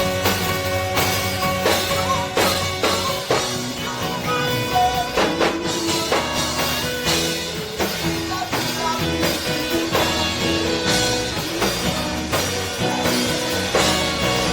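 Live gospel praise band playing an instrumental passage: drum kit keeping a steady beat under sustained keyboard and guitar chords, with no singing.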